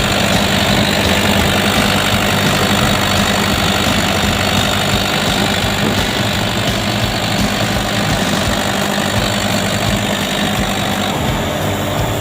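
Diesel engine of a Kubota KX165-5 mini excavator running steadily at idle.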